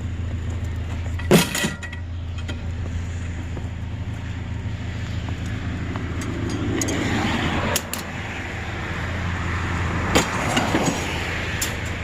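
Pickup truck driving, heard from inside the cab: a steady low engine hum and tyre and road noise that swells for a couple of seconds past the middle. A few sharp knocks or clicks stand out.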